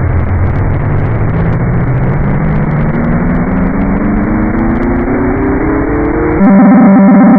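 Slowed-down, distorted Emergency Alert System tones over harsh static: a pair of tones drops low at the start, then slides slowly upward in pitch. About a second before the end, a louder, low, steady buzzing tone takes over.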